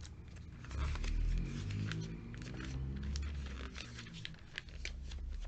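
Glossy catalogue pages being turned quickly by hand: a steady run of crisp paper flicks and rustles.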